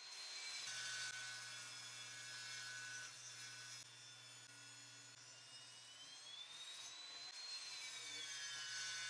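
Table saw running faintly as wood is ripped in half, a steady motor hum with a high whine that rises and then falls in the second half as the blade cuts.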